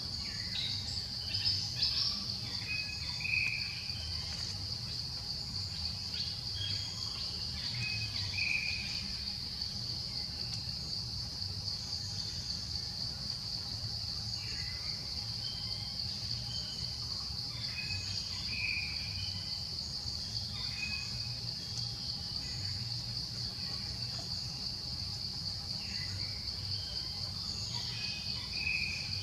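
Steady high-pitched insect drone, with short chirps breaking in a few times over a low background rumble.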